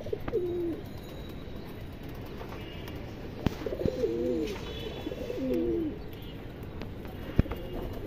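Domestic pigeons cooing: a short coo at first, then two longer wavering coos about four and five seconds in. Two sharp clicks cut in, one just before the longer coos and a louder one near the end.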